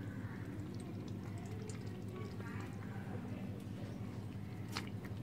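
Kittens lapping milk: a run of small, quick wet clicks over a steady low hum, with one sharper click near the end.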